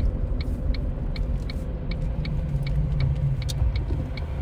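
Car turn-signal indicator ticking steadily, about three ticks a second, over the low rumble of the car moving, heard inside the cabin.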